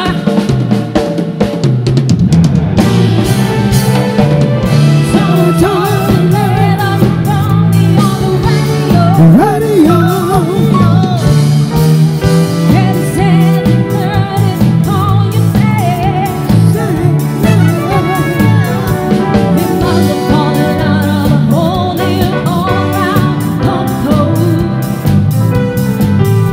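Live band playing an upbeat dance song: a steady drum-kit beat, a bass line, keyboard, and a female singer's voice.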